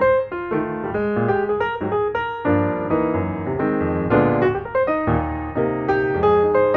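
Background music: piano playing a flowing run of notes and chords.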